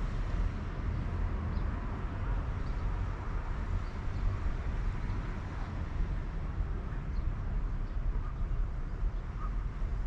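Steady low rumble of outdoor background noise, with a few faint, short high chirps.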